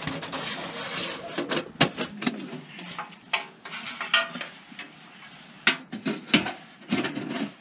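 Thin titanium panels of a folding wood stove clinking and scraping as they are slotted together, with many sharp metal clicks and knocks.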